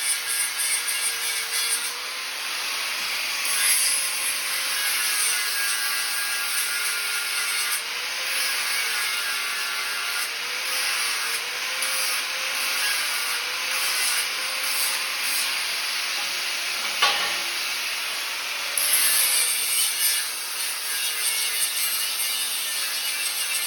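Angle grinder grinding steel in a steady hiss, its motor pitch wavering as the load on the disc changes, with one sharp knock partway through.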